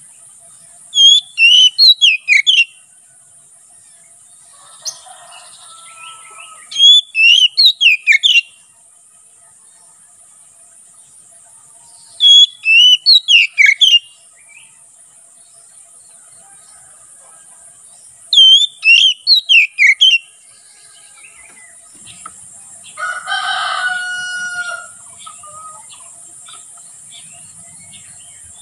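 Oriental magpie-robin singing loudly in four short bursts of rapid whistled notes, spaced several seconds apart. A lower, longer call comes near the end, and a steady high insect buzz runs underneath.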